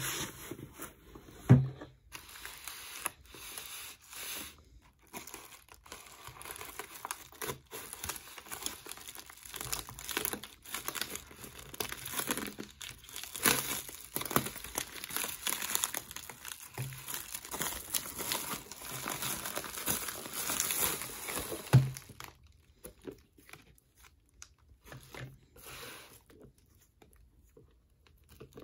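Plastic mailer and packing wrap crinkling and tearing as they are pulled open by hand, with a thump about a second and a half in and another at about 22 s, when the crinkling stops. After that, only light handling noise.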